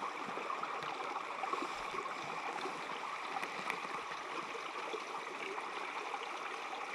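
Small mountain stream running steadily over rocks, a constant gurgling rush of water.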